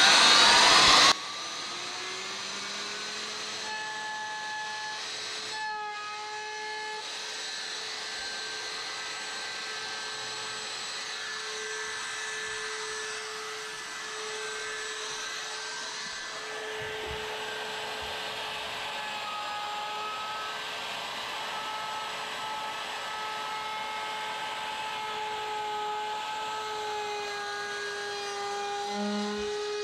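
Electric wood router cutting a wooden window ledge: a loud cutting noise ends abruptly about a second in. After that the router motor runs on with a steady high whine that wavers slightly in pitch as it makes a light second pass.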